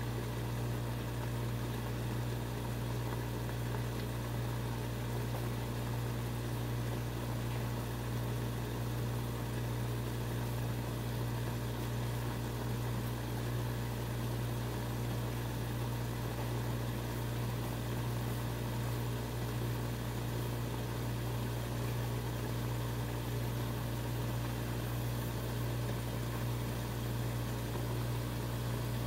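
A steady low machine hum that does not change, with a faint even hiss over it.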